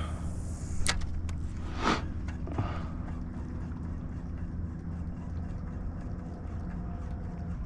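Steady low drone of a boat engine running, with a few light clicks in the first couple of seconds.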